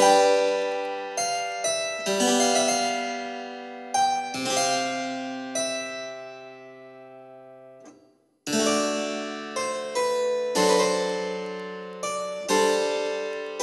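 Background music: a keyboard instrument playing slow chords, each note ringing and fading away. It breaks off briefly about eight seconds in, then resumes.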